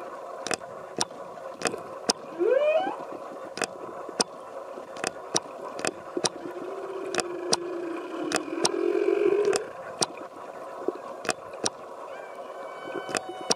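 Humpback whale calling underwater: a short rising whoop about two and a half seconds in, then a long wavering low moan from about six and a half to nine and a half seconds, with fainter higher calls near the end. Sharp clicks tick about twice a second throughout.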